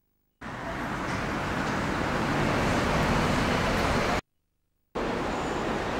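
Steady road traffic noise from buses and cars running past. It cuts out completely at the very start and again for about half a second around four seconds in.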